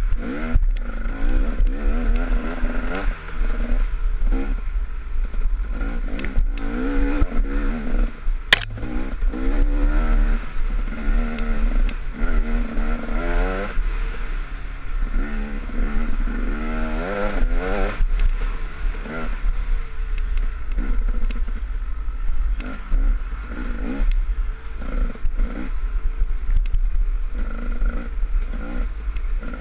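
Dirt bike engine revving up and down over and over as the throttle is worked on a race trail, with clattering and scraping from the bike over rough ground and a sharp knock about eight and a half seconds in.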